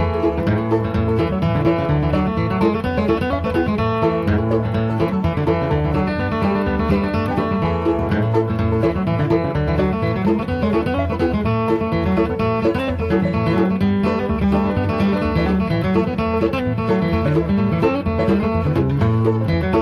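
Background music: fast-picked banjo and guitar in a bluegrass style, playing steadily.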